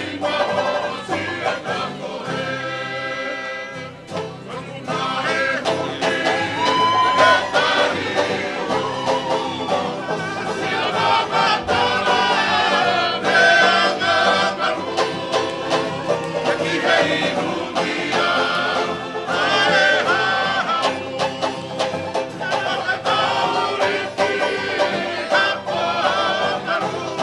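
Tongan string band of acoustic guitars and banjo playing a lively strummed song for a tau'olunga dance, with men's voices singing along; the music briefly eases about three seconds in before picking up again.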